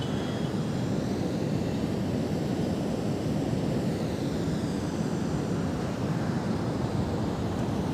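Steady low rumbling background noise, even and unbroken, with no speech or music.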